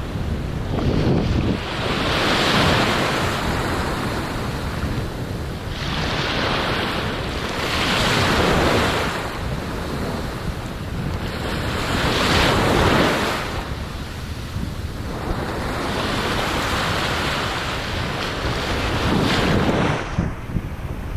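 Ocean surf breaking on the shore, swelling and fading every few seconds, with wind buffeting the microphone.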